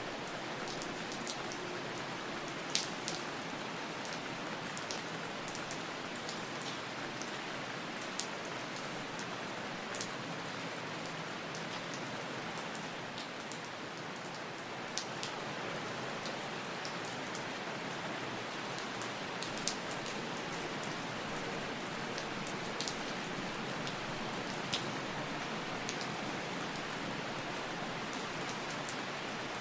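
Steady rain falling, an even hiss with scattered sharper drops striking a surface now and then.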